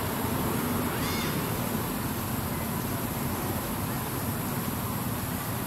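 A steady hiss of outdoor background noise, with one short arched squeal from a macaque about a second in.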